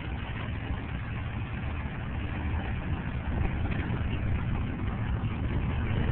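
John Deere Trailfire snowmobile's two-stroke engine running steadily under way, with a low rumble and a noisy rush over it, getting a little louder in the second half.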